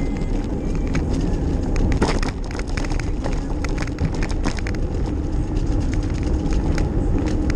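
Riding noise of a bicycle on a paved path: a steady low rumble, with a quick run of clicks and crackles for a few seconds in the middle.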